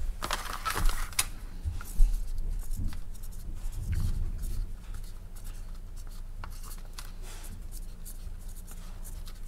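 Sharpie permanent marker writing on a plastic vacuum-seal bag: short scratchy strokes of the felt tip on the plastic. A few clicks and rustles of the bag being handled come in the first two seconds.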